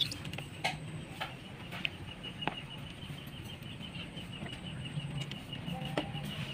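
A metal stockpot of water heating on a burner, with scattered sharp clicks as plastic tongs knock against the pot while lowering squid in among corn cobs. A fast, even, high-pitched chirping of about five pulses a second runs underneath.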